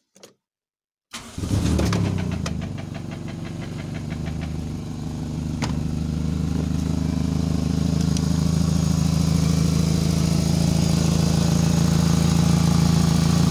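Toyota 4A-FE 1.6-litre four-cylinder engine starting about a second in, with a rapid, evenly spaced knocking just after it catches, then running steadily. The knock on starting is the fault the owner is trying to trace.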